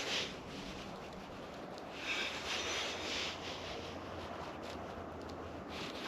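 Soft rustling and rubbing noises in a few brief bursts, over a faint steady low hum.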